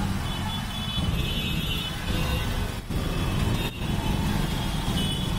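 Street traffic: a steady low rumble of vehicle engines and road noise, with faint high tones mixed in.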